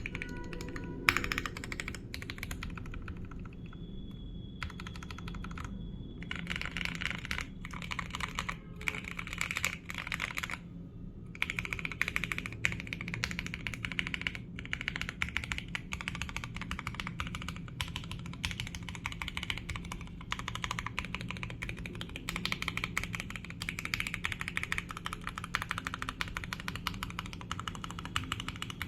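Fast, continuous typing on a Redragon K552 Kumara mechanical keyboard with lubed Akko Jelly Black switches and ASA-profile keycaps, its case dampened with foam, tape, a towel and coin weights, heard through a phone microphone. The key presses run in dense streams, with short pauses a few seconds in and about eleven seconds in.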